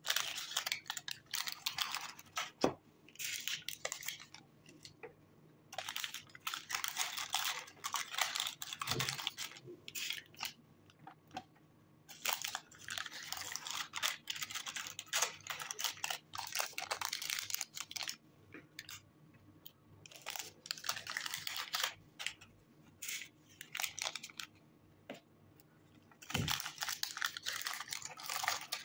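Paper candy cups and a cardboard gift box crinkling and rustling as gloved hands fit truffles into the box's cells, in bursts of a few seconds with short quiet spells between.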